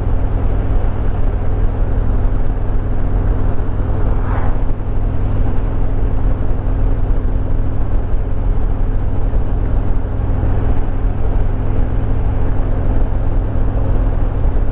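Harley-Davidson Road Glide Limited's Milwaukee-Eight 114 V-twin running steadily at cruise, under wind and road noise. A brief swell of noise comes about four seconds in.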